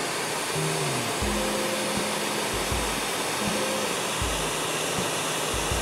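Ryobi 1800 PSI electric pressure washer running and spraying through a 15-degree tip with a 1.7 orifice: a steady hiss of spray over the motor and pump, building about 1600 PSI.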